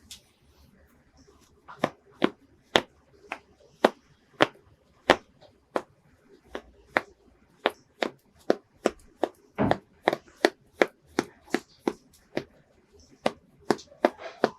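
An irregular run of sharp taps and clicks on a hard surface, about two a second, with one heavier knock about two-thirds of the way through.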